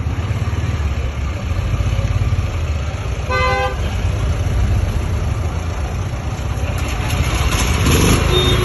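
Portable petrol generator set's engine running with a steady low rumble. A brief horn toot sounds about three and a half seconds in. Near the end the engine sound rises in pitch and grows louder.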